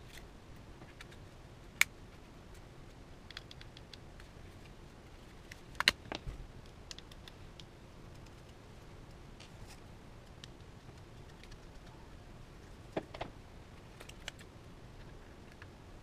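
Small sharp clicks and taps of a screwdriver and a 2.5-inch SSD with its mounting screws being handled and fitted into a laptop's drive bay. One click comes about two seconds in, a quick cluster near the middle and a pair later on, over a faint steady hiss.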